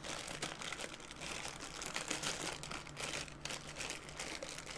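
Black plastic bag from a Funko blind box being handled and opened, crinkling irregularly throughout.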